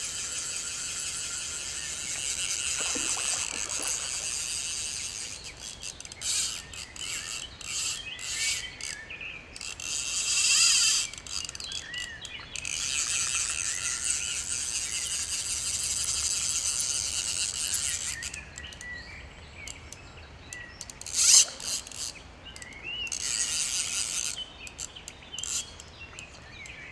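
Fly reel's click-and-pawl ratchet buzzing in several runs of a few seconds each as a hooked trout is played, the longest lasting about five seconds in the middle. One brief, louder burst comes about 21 seconds in.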